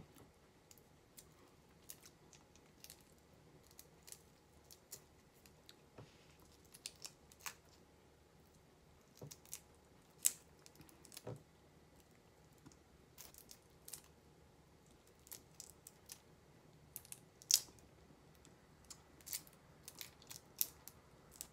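Live shrimp being peeled by hand: faint, irregular clicks and crackles of the shell and legs being pulled off, with a few sharper snaps.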